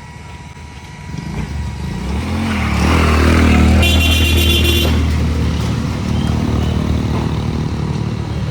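A heavy road vehicle's engine comes close, building up over the first few seconds and loudest about three to four seconds in, then stays loud. There is a brief high squeal about four seconds in.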